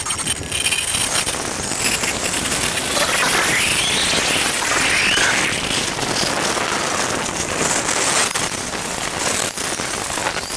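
VIA Rail passenger train's coaches rolling past on a curve, the wheels clicking and clattering over the rails, with high squeals rising and falling for a few seconds in the middle. The sound eases off near the end as the train moves away.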